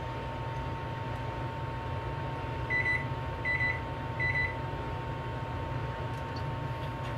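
Three short electronic beeps from a kitchen appliance, evenly spaced about three-quarters of a second apart, over a steady low hum.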